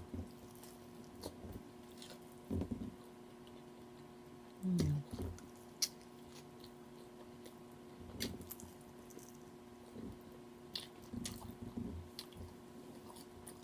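A woman chewing food close to the microphone: wet mouth sounds, lip smacks and scattered small clicks, with a short, low voiced sound about five seconds in that is the loudest moment.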